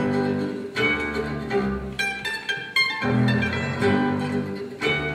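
Instrumental background music, with pitched notes struck in a steady succession.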